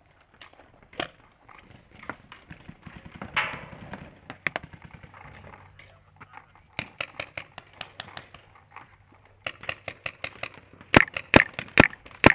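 Shocker RSX paintball marker firing quick strings of shots, the loudest a burst of about six shots near the end. Fainter single shots and short strings come in between.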